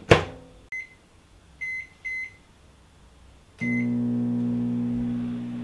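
Microwave oven door shut with a clunk, then four short keypad beeps as the time is entered. About three and a half seconds in, the oven starts running with a steady hum, heating a frozen soup.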